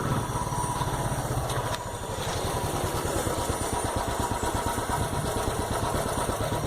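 Royal Enfield 350 single-cylinder four-stroke engine running at a steady idle through its stock silencer, giving an even exhaust thump.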